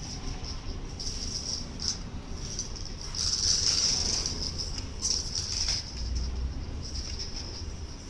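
Small DC motors of a homemade four-motor toy car whirring in spells as the wired remote's buttons switch them on and off, loudest about three to four and a half seconds in.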